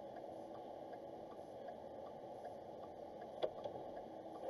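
Faint steady hum of a car idling, heard from inside the cabin, with light regular ticking about three times a second and a single sharp click about three and a half seconds in.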